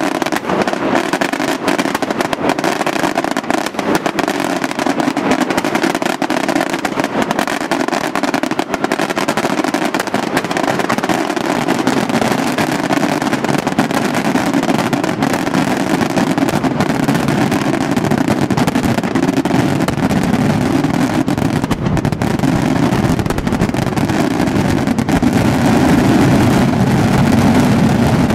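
Daytime fireworks: a dense, continuous barrage of rapid bangs and crackles from aerial shells bursting in white smoke, growing louder near the end.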